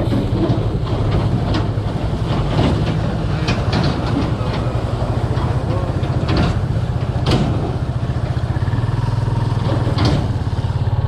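Motorcycle engine running steadily while riding, with a few short knocks scattered through.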